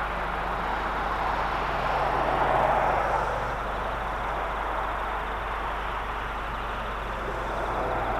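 Boeing 727 jet airliner in flight, its three Pratt & Whitney JT8D turbofan engines making a steady rushing jet noise that swells briefly about two to three seconds in.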